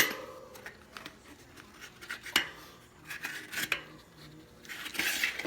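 Bicycle tire lever and wheel being handled as the tire bead is worked off the rim: a sharp snap at the very start, then scattered light clicks and rubbing of tire against rim.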